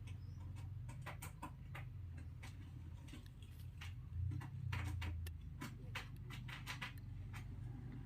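Irregular light metallic clicks and taps of circlip pliers and a steel circlip against the bearing shaft of a harvester's 4WD gear, as the circlip is worked into its groove. A low steady hum lies underneath and swells briefly about four seconds in.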